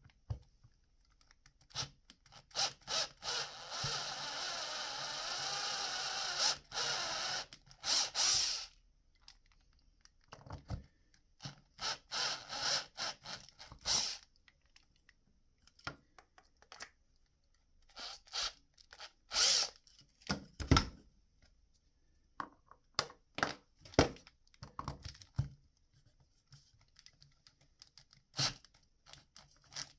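Cordless drill with a step drill bit boring a hole through a PVC pipe cap. It runs once for about three seconds near the start, then in many short trigger bursts as the bit cuts into the plastic.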